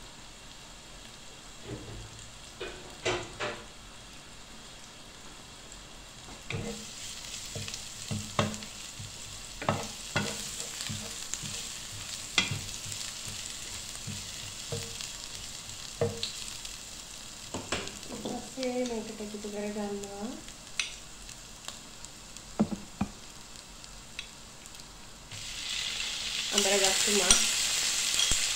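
Grated garlic sizzling in olive oil in a non-stick frying pan, with a wooden spoon clicking and scraping against the pan as it is stirred. Shortly before the end the sizzle gets suddenly louder as raw ground beef goes into the hot pan.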